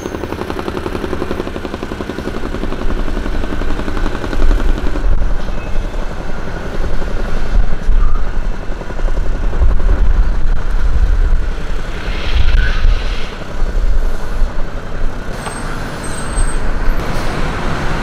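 Motor vehicle noise: a steady low rumble of engines and tyres, heavier from about four seconds in.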